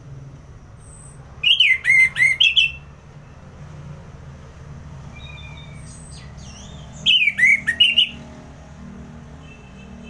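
Orange-headed thrush singing: two loud phrases of quick, tumbling whistled notes about five seconds apart, with faint thin high notes in between.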